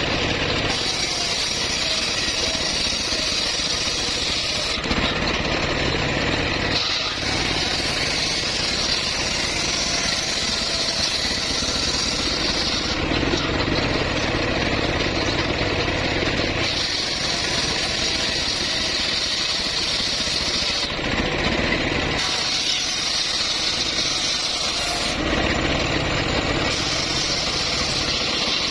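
Homemade bandsaw running steadily while sawing teak wood. A high cutting hiss comes and goes in stretches of a few seconds over the machine's constant drone.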